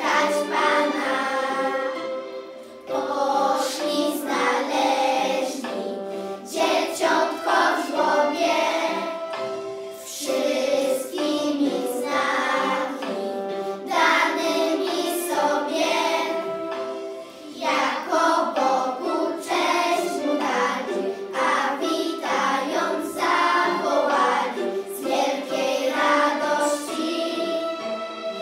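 A children's choir singing a Christmas carol together, with several young voices in unison.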